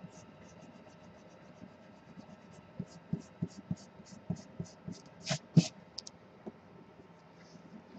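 Pencil lead scratching on paper in short repeated strokes as the circle is drawn, about three strokes a second. Two louder scrapes come about five seconds in.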